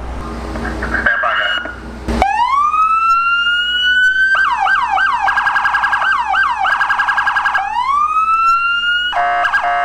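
Police car electronic siren on a Dodge Charger patrol car, starting about two seconds in with a rising wail, then switching to fast repeated sweeping chirps and trills, then a second rising wail. Near the end it changes to a steady blaring tone.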